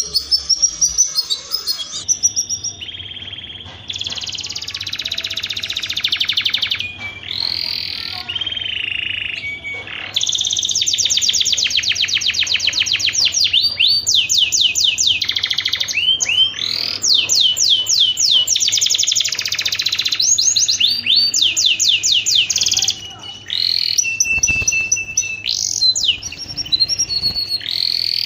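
Domestic canary in breeding condition singing a long song of fast trills and slower repeated sweeping notes, with a brief pause about 23 seconds in.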